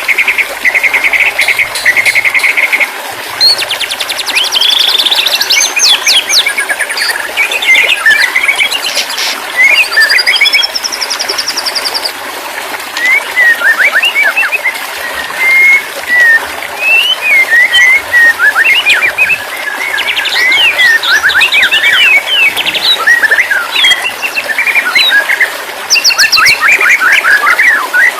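White-rumped shama song: a varied run of clear whistles, rapid trills, rising sweeps and quick chattering notes, broken by short pauses, over a steady background hiss.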